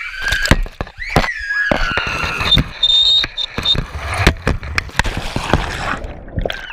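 Ride down an enclosed tube water slide heard from a body-worn camera: rushing water with many sharp bumps and knocks against the slide walls, and a child's shriek early on. About four seconds in comes a heavy splash into the pool, then a muffled underwater sound.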